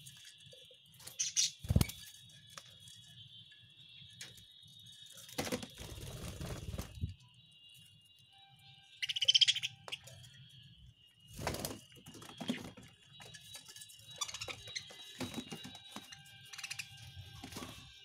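Budgerigars chirping and chattering in a cage, with a louder, sharper call about nine seconds in and a few knocks and rustles among the birds.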